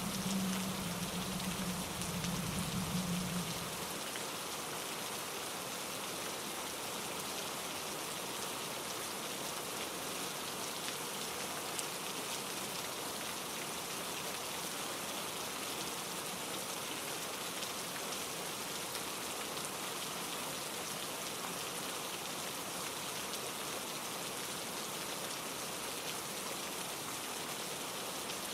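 Steady rain falling, an even, dense hiss of drops. For the first four seconds a low drone sits underneath, then stops.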